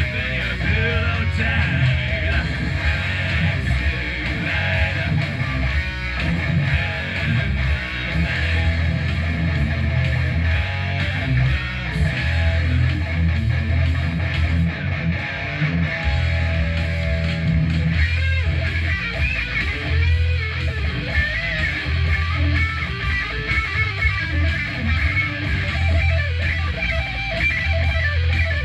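Electric guitar played through an amplifier, chords and riffs going on without a break, with higher, wavering lead notes from about two-thirds of the way in.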